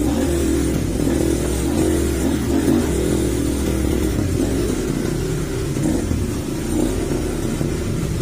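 Off-road trail motorcycle engine running and revving, its pitch wavering up and down.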